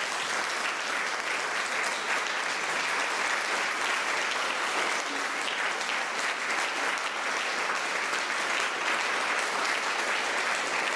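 Concert audience applauding steadily in a hall.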